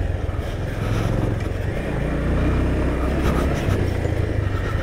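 Off-road motorcycle engine running steadily at low revs as the bike rides along a rough dirt track. Its note drops lower about two seconds in.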